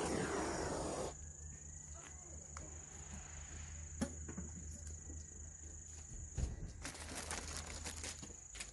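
Blowtorch flame hissing, shut off about a second in. Afterwards a steady high-pitched tone and a few sharp clicks, turning to a run of small crackles near the end as the firewood catches.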